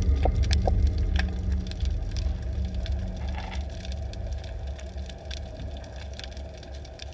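Underwater ambience picked up by a submerged camera: a low steady hum and rumble with scattered sharp clicks and crackles, fading gradually.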